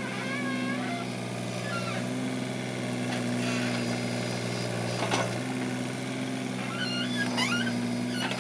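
Mini excavator's diesel engine running steadily while its bucket digs and lifts soil, with a sharp knock about five seconds in.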